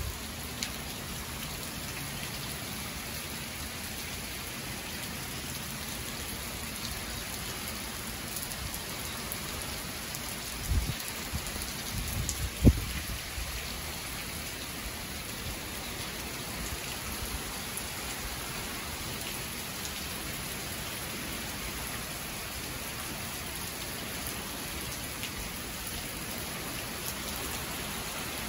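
Powerful tropical-storm rain falls in a steady hiss. Two brief low thumps break through about eleven and thirteen seconds in.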